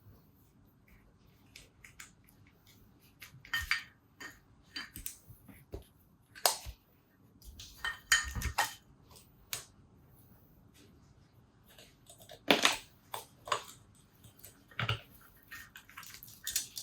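Irregular metallic clicks, clinks and knocks of hand tools and small carburettor parts being handled on a workbench while the top of a two-stroke dirt bike carburettor is taken off. The louder knocks come about 4, 8, 12 and 15 seconds in.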